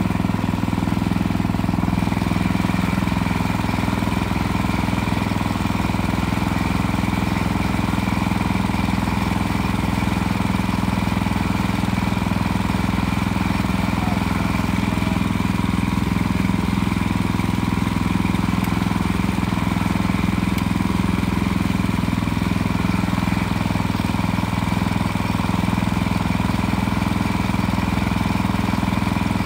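Small single-cylinder gas engine on a portable bandsaw sawmill running steadily at an even speed.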